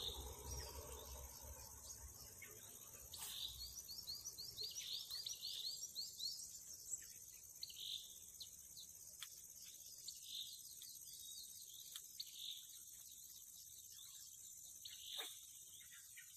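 Faint natural ambience: a steady high-pitched insect drone, with short bird chirps and calls every second or two, busiest a few seconds in.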